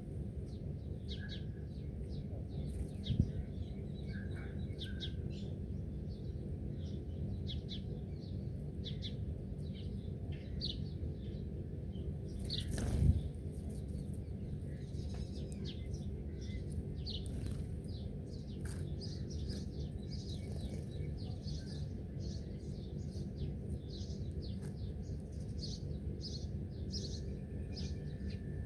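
Many small birds chirping in short, quick calls, over a steady low rumble. A thump about 3 seconds in and a louder one about 13 seconds in, and a thin steady tone comes in near the end.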